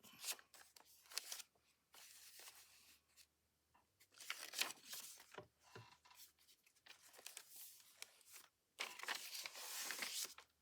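Quiet handling of paper and journal pages: scattered soft taps and rustles, with a longer rustling stretch near the end.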